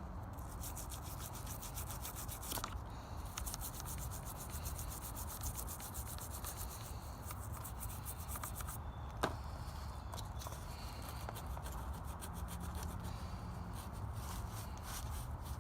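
Rapid hand scrubbing of the metal sealing surfaces of car A/C line fittings, cleaning off grime before new O-rings go on. The scrubbing pauses briefly a couple of times, with one sharp tap about nine seconds in.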